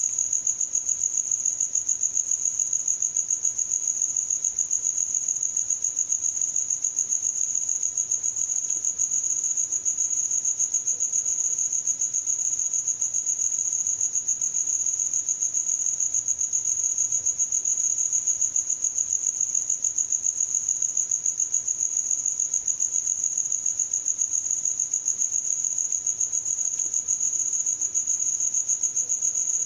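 A cricket chirping: a steady high-pitched trill of quick, even pulses that never pauses.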